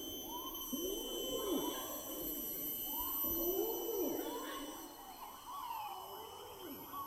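Male orangutan's long call: a series of deep, drawn-out calls, each rising and then falling in pitch, coming every second or two and fading toward the end.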